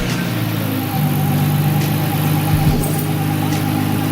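Nissan Skyline GT-R R33's twin-turbo straight-six idling steadily, just after being started by remote start.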